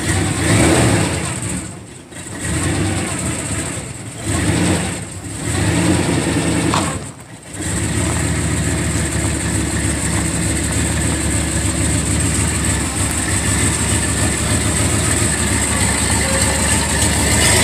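Pickup truck engine, freshly started after sitting for about a year, surging and dipping three times in the first seven seconds, then settling into a steady idle.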